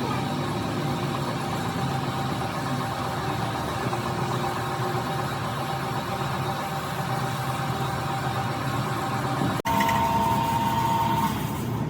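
A machine running steadily, a droning hum. About ten seconds in it cuts off abruptly and a different machine sound with a steady high whine takes over.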